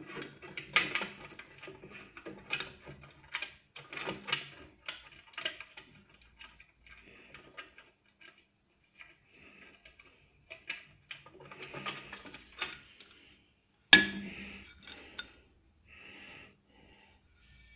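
Drill press parts clinking and knocking together during assembly as the steel column and its flange are handled and fitted onto the base, with one loud, ringing metal clank about 14 seconds in.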